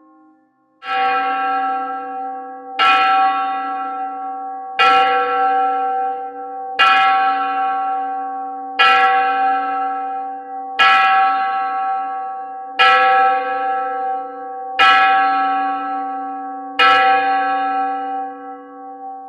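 Large clock bell striking nine times, one stroke about every two seconds, each ringing on into the next and fading out after the last.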